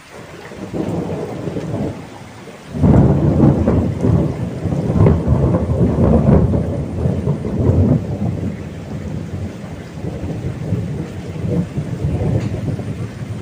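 Thunder rolling over heavy rain falling on a pond's surface. A loud crack about three seconds in rumbles on for several seconds and slowly fades.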